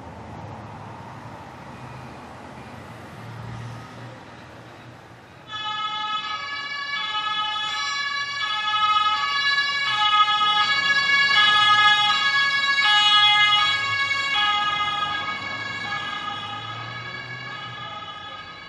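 Ambulance two-tone siren alternating between a high and a low pitch, coming in suddenly about five seconds in over a low rumble of road traffic. It grows louder toward the middle and then fades away.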